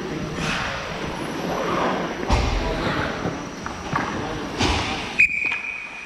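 Ice hockey play: skates scraping on the ice and dull thumps of puck, sticks or boards about two and a half and nearly five seconds in, then a referee's whistle starting about five seconds in and held steady to the end, stopping play.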